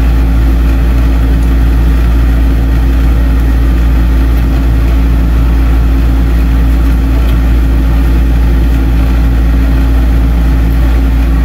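A motor vehicle's engine runs steadily with a constant low drone.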